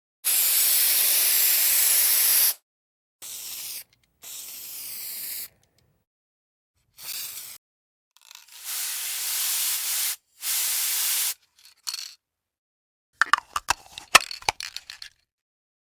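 Aerosol spray paint can spraying in separate bursts: a long hiss of about two seconds at the start, then six shorter ones. Near the end comes a quick run of sharp clicks and clinks.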